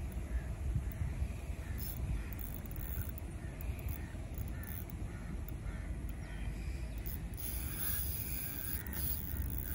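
Wind rumbling on the microphone, with a bird giving short calls over and over throughout.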